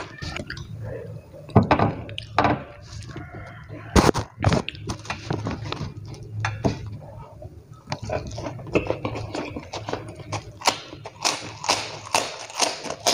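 Close-up eating sounds of a person chewing rice and side dishes eaten by hand: irregular mouth clicks and short crackly noises, with a sharp click about four seconds in.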